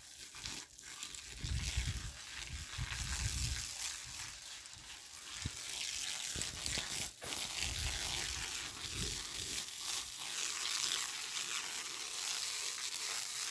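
Water from a garden hose hissing and splashing onto a concrete step and the ground, with a few low rumbles now and then.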